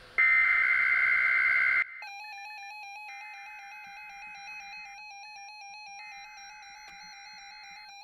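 NOAA Weather Radio SAME alert header: a loud burst of warbling digital data tones for about a second and a half, marking the start of the Required Weekly Test. It then drops in level, and two more fainter header bursts come over a steady electronic alert tone with a slight regular flutter from a weather radio receiver.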